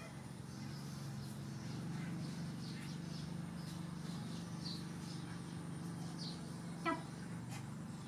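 Faint, scattered bird chirps over a steady low hum, with one brief high squeak about seven seconds in.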